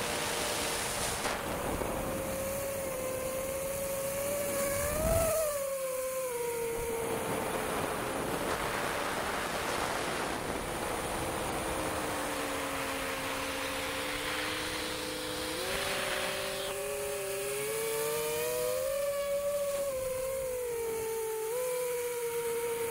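Long-range quadcopter's brushless motors whining over a steady rush of wind, the pitch drifting with throttle. The whine rises and drops sharply about five seconds in, then climbs and falls again near the end.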